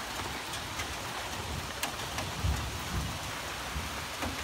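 Steady rain falling on surfaces with scattered drop ticks, and a short low thump about two and a half seconds in.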